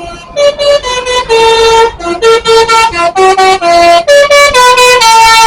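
Bus telolet basuri horn playing a quick tune: a loud run of separate horn notes stepping up and down in pitch, several notes a second.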